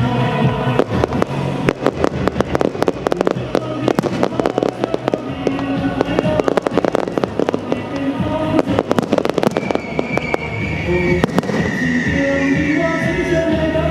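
Fireworks going off in a rapid run of bangs and crackles, thinning out after about eleven seconds, with music playing underneath throughout.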